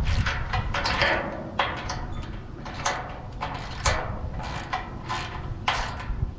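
Hand ratchet wrench clicking through repeated strokes, about two a second, as bolts are run down and tightened.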